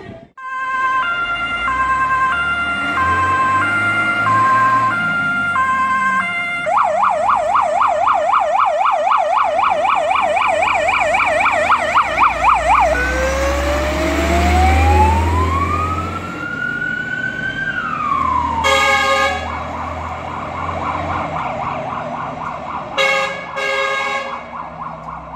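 Jelcz 422 fire engine's siren moving off: a stepped two-tone hi-lo pattern, then a fast yelp sweeping up and down about four times a second, then a slow rising wail that falls away, over the truck's low diesel rumble. A horn blast cuts in about three-quarters through, the two-tone returns, and short horn toots come near the end.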